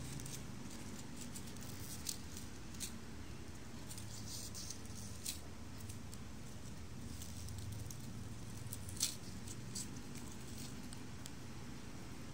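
Fingers rubbing and bending a bundle of stiff sugar palm (Arenga pinnata) fibres: scattered faint clicks and crackles, the sharpest about nine seconds in, over a steady low background noise.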